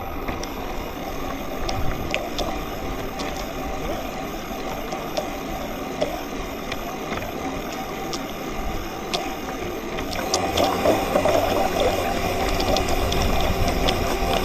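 Onboard sound of a radio-controlled model boat: its drive makes a steady mechanical whir with a thin high whine and fast rattling clicks, mixed with water washing against the hull. It grows louder about ten seconds in.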